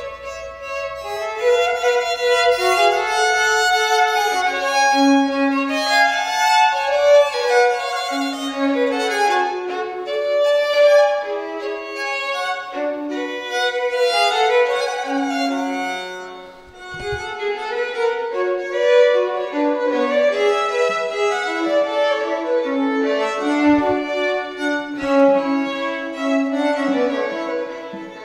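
Two violins playing a baroque duet, two melodic lines weaving around each other, with a short phrase break about sixteen seconds in.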